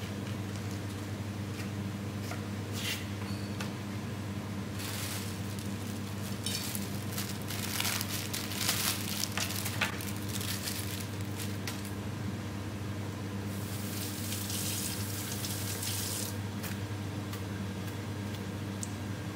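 Plastic packaging crinkling and rustling in irregular bursts as a packet is handled and opened. This is followed, a little past the middle, by a tap running into a stainless steel sink for about three seconds. A steady low hum sits underneath.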